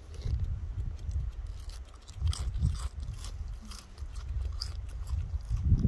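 Golden-mantled ground squirrel crunching and chewing a chip: quick, fine crackles come in clusters, thickest about two to three seconds in, over a steady low rumble.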